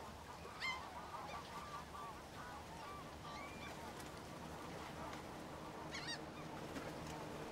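A flock of waterfowl calling faintly: many short calls overlapping, with a sharper, higher call about a second in and another near the end.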